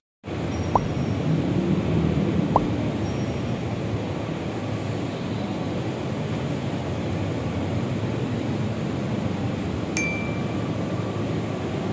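Steady outdoor city ambience, a low hum of traffic and crowd, with two light clinks of ice against a glass about one and two and a half seconds in.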